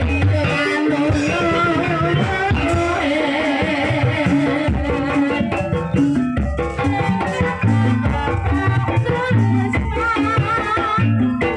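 Live Javanese gamelan music accompanying an ebeg horse dance, with repeated low drum strokes, rattling percussion and a wavering high melody line.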